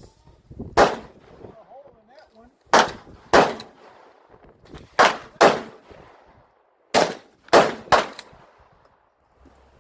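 Eight gunshots from firearms at an outdoor shooting range. They come irregularly, some in quick pairs about half a second apart, and three close together near the end.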